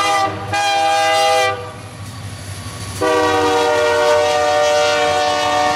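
Air horn of a Union Pacific diesel locomotive leading a freight train, sounding in blasts. A blast ends just after the start, a second blast lasts about a second, and a long steady blast begins about halfway through. The train's low rumble runs underneath.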